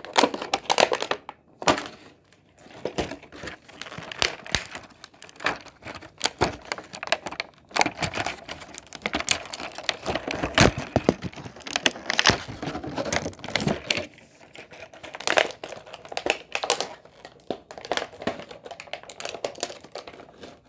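A clear plastic bag crinkling and rustling in irregular crackly bursts, with sharp clicks, as a toy is worked out of it by hand. There are brief lulls about two seconds in and again near the middle.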